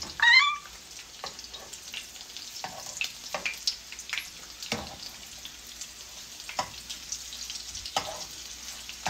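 Potato taquitos deep-frying in a pan of hot oil: a steady sizzle with scattered sharp pops and crackles as they are turned with metal tongs. A brief high, rising vocal cry right at the start is the loudest sound.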